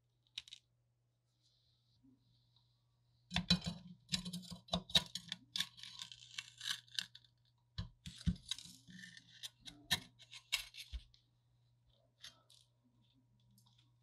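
Rusty sheet-metal parts of an old electric railroad lantern being worked loose by hand: a couple of light clicks, then from about three seconds in to about eleven seconds, irregular scraping, grating and clinking of metal on metal.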